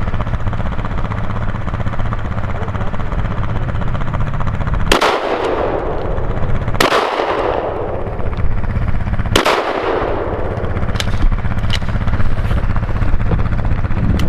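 Three shotgun shots fired at a ptarmigan, the first two about two seconds apart and the third about two and a half seconds later, each trailing off in a long echo. A steady low rumble runs underneath, with a few faint clicks after the last shot.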